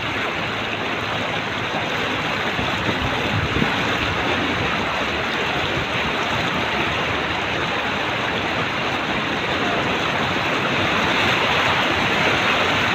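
Steady rush of floodwater and spray around a car driving through a flooded street.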